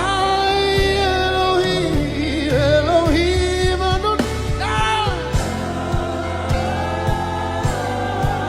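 Live gospel worship music: a solo voice sings wordless melodic runs over sustained keyboard chords and bass, with light regular percussion.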